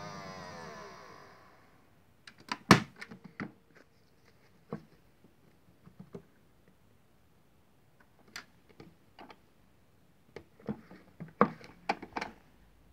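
Modified Miele W1 toy washing machine's motor winding down from its spin, the whine falling in pitch and fading out about two seconds in. After it come a series of scattered clicks and knocks.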